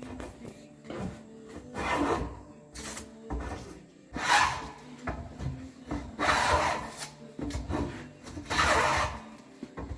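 A hand tool scraping along a wooden hull plank in long strokes, about one every two seconds.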